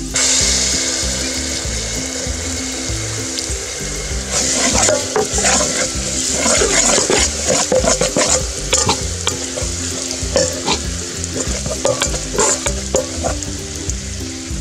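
Minced garlic and a brown sauce sizzling in oil in a metal pot, stirred with a spatula that scrapes the pot bottom, louder from about four seconds in.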